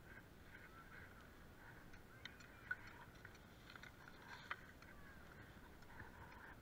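Near silence: faint distant voices with a few light clicks and taps, the sharpest about three and four and a half seconds in.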